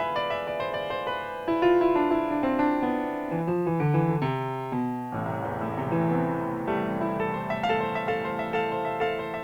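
Piano playing a fast passage of many quick notes, with a run of loud repeated chords about four to five seconds in.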